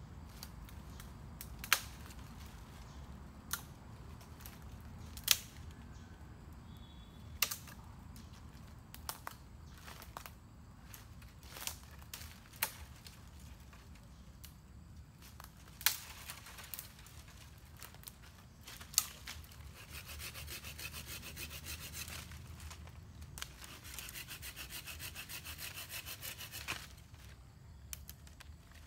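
Dry dead branches snapping, with sharp single cracks every second or two. Later, a hand saw rasps through a branch for several seconds.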